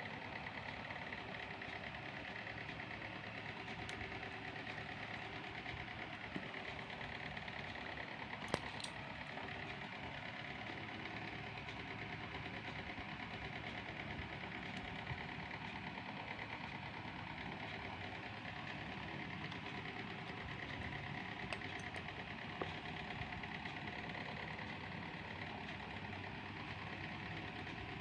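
Steady mechanical hum of a running motor, with a few faint sharp clicks scattered through it.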